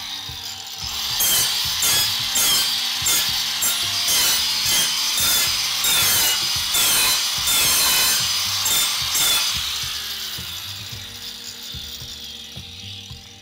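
Angle grinder cutting into an aluminum flatbed rail along a marked line, in repeated short passes at about one and a half a second. The noise fades over the last few seconds.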